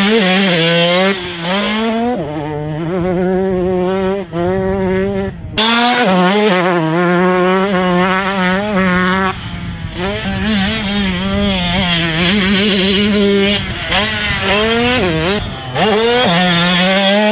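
Husqvarna TC125's single-cylinder 125cc two-stroke engine ridden hard around a motocross track, its pitch rising and falling with throttle and gear changes. The sound jumps abruptly several times as it cuts from one pass to another.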